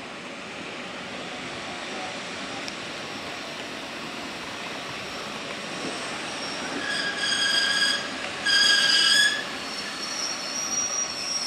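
EN71 electric multiple unit rolling slowly into the platform, its running noise building. Two short blasts of its high-pitched horn come about seven and eight and a half seconds in. Near the end a high, steady squeal sets in as the train slows.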